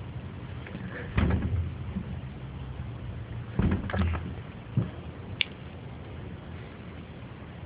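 A few dull knocks and thumps over a steady low hum: one about a second in, a cluster around four seconds, then a short high squeak a little later.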